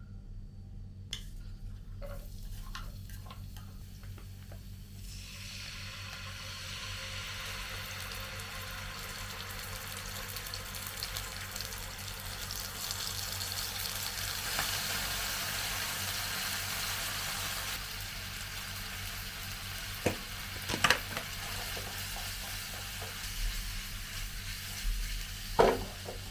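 Cooking sounds at a kitchen stove: a steady hiss that sets in about five seconds in, with a few sharp clinks and knocks of utensils on cookware near the end.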